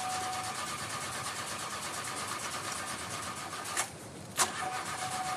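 Bus engine being cranked by its starter motor without catching: an even, rapid cranking with a steady whine, which stops briefly about four seconds in and then starts again.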